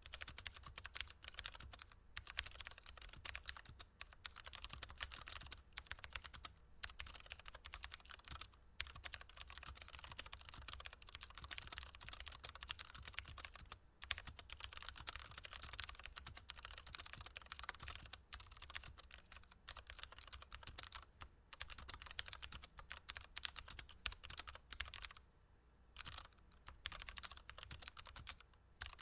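Mechanical keyboard typing, treble-boosted: a fast, continuous stream of bright key clicks, with a short pause about 25 seconds in.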